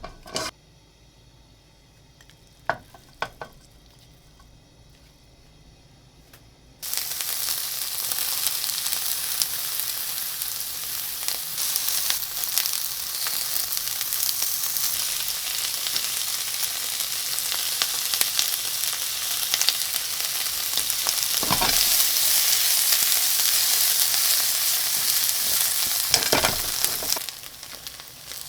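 Pieces of thick fried tofu (atsuage) sizzling in hot oil in a frying pan. After a few quiet seconds with a few light clicks, the sizzling starts suddenly, a quarter of the way in, as a loud steady hiss. It stops near the end, with a couple of knocks of a utensil in the pan along the way.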